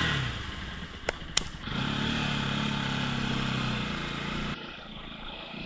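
Motorcycle engine heard from the rider's seat as the bike pulls away and rides on, with wind and road noise. Two sharp clicks come about a second in. The engine note then holds steady for a few seconds and drops off about four and a half seconds in as the throttle eases.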